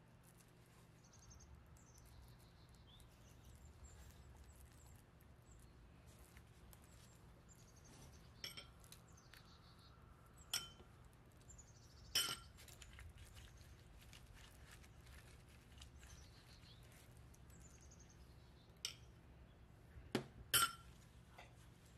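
A metal spoon clinking against a glass baking dish: about six sharp, separate clinks, the loudest near the end, over a faint steady hum and faint high chirps.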